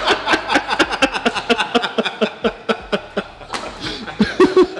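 Several men laughing hard in quick bursts, getting louder near the end.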